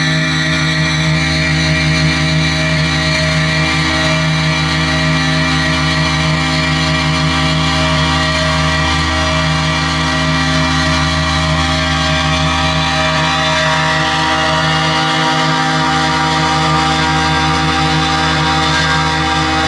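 Loud, steady amplified drone: many held tones layered into a dense, buzzing wall of sound, played on an electric guitar laid flat and fed through effects pedals. It keeps going without a break or a beat.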